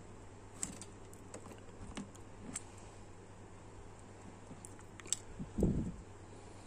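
Small plastic action-figure parts clicking and tapping as they are handled and pried apart, a few scattered sharp clicks, with a louder dull bump of handling near the end.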